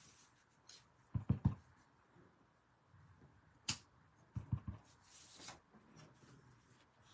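Clear acrylic stamp block knocked on an ink pad and pressed onto cardstock on a craft mat: a quick run of three low thumps about a second in, a sharp click a little later, then three more thumps.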